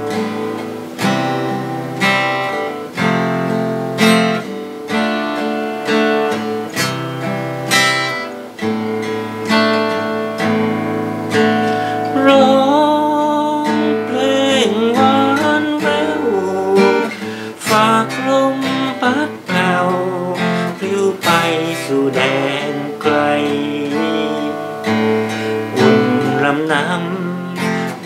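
Acoustic guitar played solo, strummed chords mixed with picked single notes in a steady rhythm.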